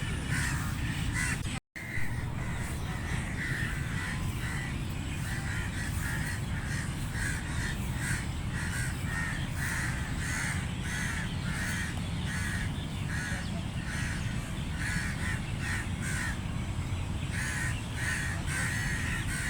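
Crows cawing over and over, short harsh caws coming about once or twice a second, over a steady low rumble. The sound cuts out completely for a moment a little under two seconds in.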